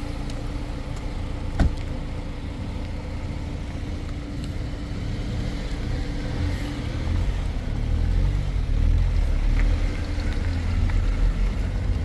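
Car engine running with a steady hum, and one sharp knock about a second and a half in. A low rumble grows louder over the second half.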